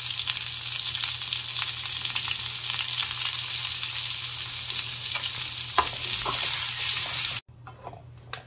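Parwal (pointed gourd) pieces frying in hot oil in a pan: a steady sizzling hiss with a few sharp clicks. It cuts off suddenly near the end, leaving quieter clicks of a metal spoon turning the pieces.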